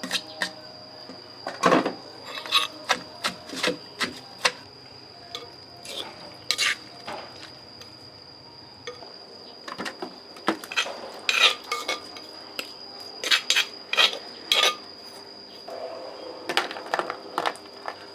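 Dishes and kitchen utensils clinking and knocking at irregular intervals, with a steady high-pitched tone underneath.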